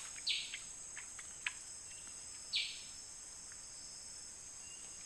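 Steady high-pitched drone of forest insects, with two short harsh chirps, one just after the start and one about halfway through, and a few faint clicks.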